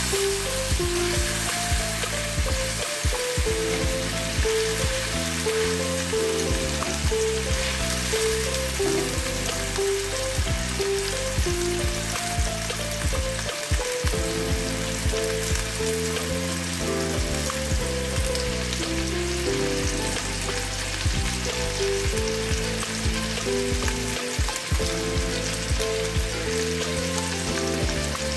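Pork tenderloin sizzling in hot olive oil in a frying pan, a steady crackling hiss. Soft background music with a plain melody plays over it.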